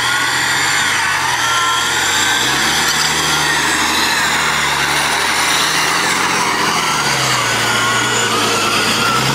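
Engine of a modified off-road 4x4 running under load, its revs rising about two and a half seconds in and dropping back about seven seconds in, with a wavering high whine over it.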